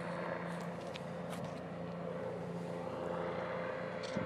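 Bell 407 helicopter on final approach, heard from a distance as a steady drone with a low hum and a higher tone over it.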